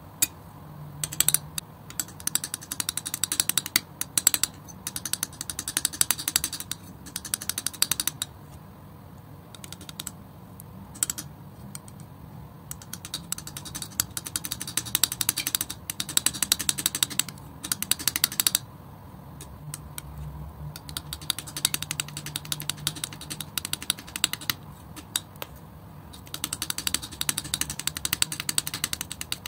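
Metal palette knife spreading and folding thick acrylic paint: wet, sticky crackling clicks in bursts of a second or two, one per stroke, with short pauses between strokes.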